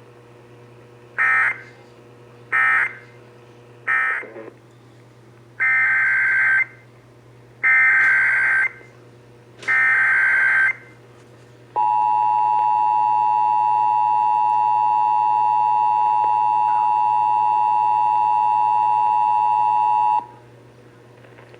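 Emergency Alert System tones. First come three short digital data bursts, the end-of-message code closing the previous alert. Then three longer, evenly spaced data bursts, the SAME header of a new alert, and finally the steady two-tone attention signal held for about eight seconds before it cuts off.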